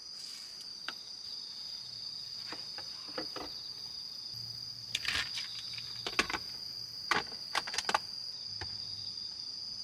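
Insects trilling in a steady high tone, with scattered light clicks and knocks as plates and a plastic container are handled.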